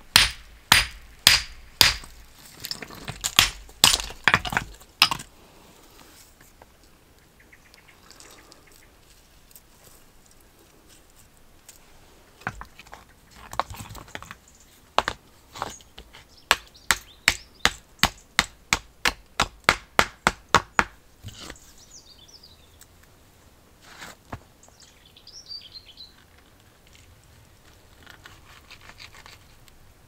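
Flat stones clacking against each other in sharp knocks. The knocks come about once a second at first, then after a pause in a quicker, even run of about three a second.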